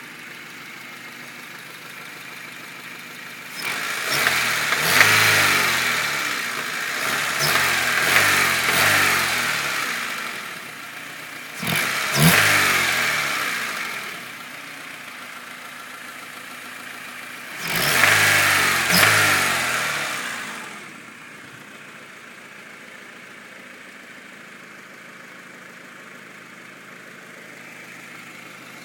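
1997 Honda Civic EX's 1.6-litre four-cylinder engine idling and revved several times, falling back to idle after each rev, with an engine knock whose cause the owner cannot place.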